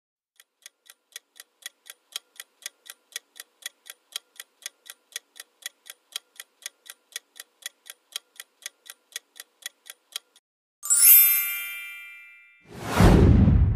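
Countdown-timer sound effect: even ticks at about four a second for ten seconds, growing louder over the first couple of seconds. The timer runs out into a bright chime that rings for a moment as the answer is revealed, and then comes a loud whoosh near the end.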